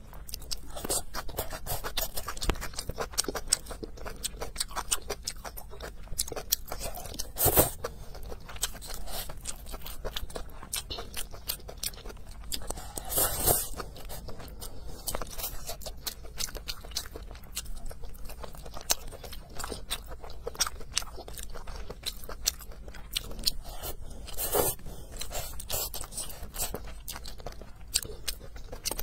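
Close-miked eating sounds: wet chewing with many small mouth clicks, and a few louder slurps as noodles are sucked in, about 7, 13 and 24 seconds in.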